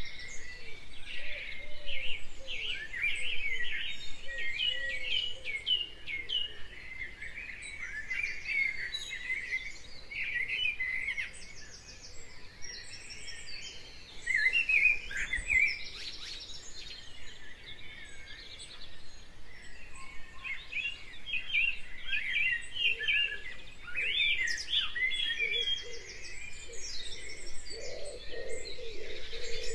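Morning chorus of many songbirds, a recording laid over the picture: dense overlapping chirps, trills and warbles, thinning out briefly around the middle. Low repeated calls join in during the last few seconds.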